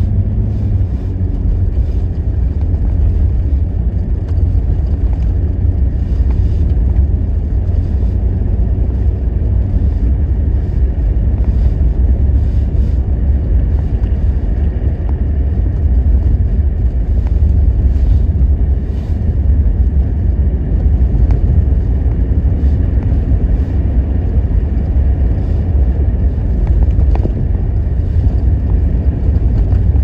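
Car driving on a snow-covered road, heard from inside the cabin: a steady low rumble of engine and tyres, with a few faint clicks.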